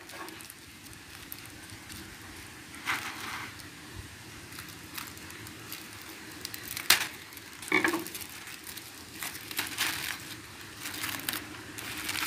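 Plastic bag crinkling and scissors snipping as the plastic string tying the cover bag around a croton cutting is cut and loosened: a few short rustles and sharp clicks, the sharpest about seven and eight seconds in, over a faint steady low hum.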